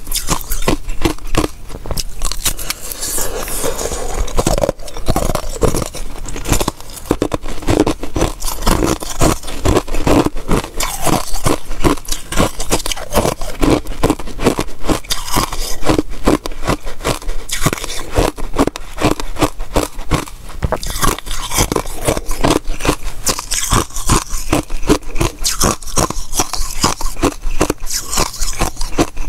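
Close-miked crunching of pink basil-seed ice cubes being bitten and chewed: a dense, continuous run of sharp cracks and crunches.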